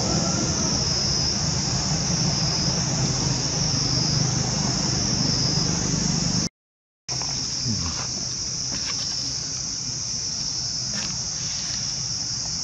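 Steady high-pitched insect chorus, with a low steady hum beneath it. It breaks off for about half a second near the middle, then carries on with a few faint ticks.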